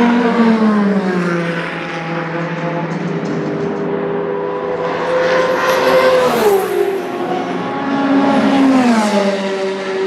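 Endurance race cars passing at speed, three in turn, each engine note dropping in pitch as it goes by.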